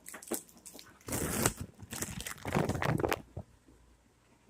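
Plastic cheese wrapper crinkling in about three bursts, stopping a little after three seconds in.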